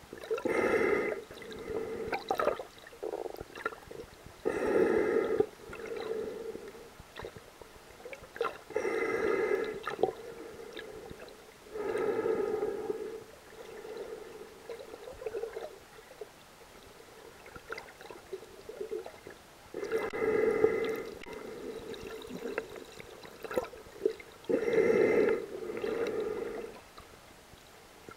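A snorkeler breathing through the snorkel tube: a loud, hollow breath every four seconds or so, most followed by a softer one, with a longer pause in the middle.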